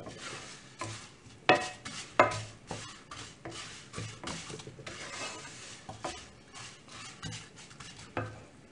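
A spoon stirring and scraping vermicelli as it toasts in oil in a cooking pot, with irregular clinks against the pot, two louder ones about one and a half and two seconds in, over a faint sizzle.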